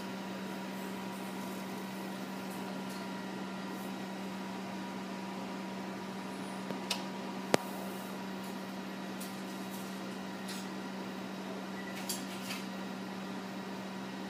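Steady low electrical hum from laboratory equipment, with a few small clicks and one sharp click about halfway through.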